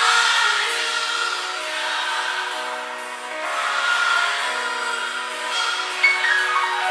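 Background music: a song with long held sung notes, thin and without bass.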